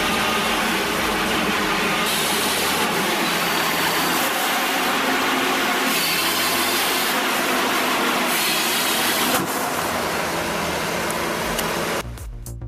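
Heavy forestry machinery working: a loud, steady mechanical noise that shifts a few times and drops off sharply near the end.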